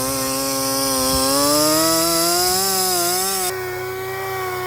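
Dual-action (DA) sander running on the face of a Pontiac 400 cast-iron cylinder head with 80-grit paper, a steady whine over a hissing grind. The grinding hiss cuts off about three and a half seconds in while the sander's whine keeps on.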